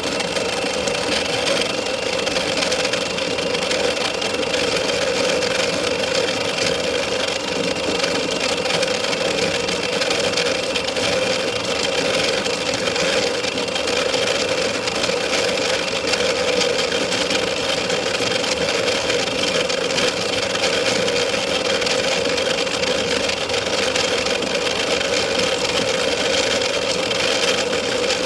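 Lahome electric coffee grinder running steadily as it grinds coffee beans.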